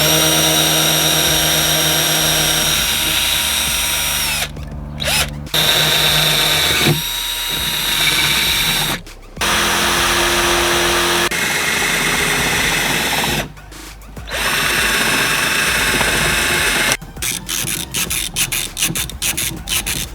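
Power drill running in three or four long runs with short pauses, drilling holes through a Jeep Wrangler JK door for a metal handle conversion; it stops a few seconds before the end, followed by irregular clatter.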